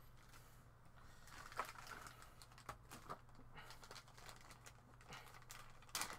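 Clear plastic bags holding 3D-printed model parts crinkling and rustling as they are picked up and moved, with a few sharp clicks. The handling starts about a second in and comes in short, irregular bursts.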